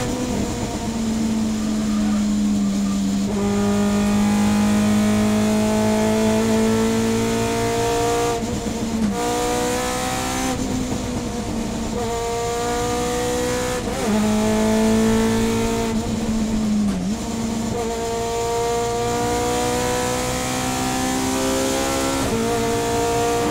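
Subaru BRZ SP3 race car's self-built short-stroke two-litre flat-four boxer engine with a 4-1 exhaust, heard inside the cabin, running hard through a series of gear changes on its sequential six-speed gearbox: the pitch climbs, then breaks and jumps at each shift, about seven times.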